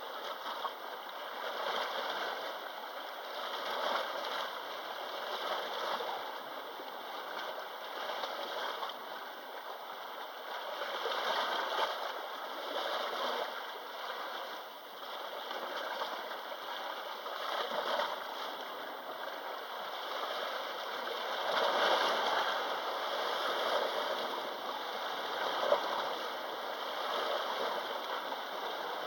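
Small sea waves washing and lapping against the shore. The wash swells and ebbs every few seconds, with a couple of stronger surges.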